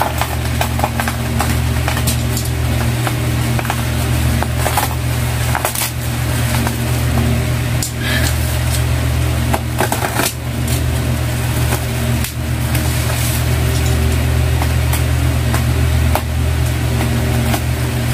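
Thick bubble wrap and packing tape on a parcel being cut and pulled open with a small box cutter: scattered crinkles, scrapes and clicks of plastic. Under them runs a loud, steady low hum.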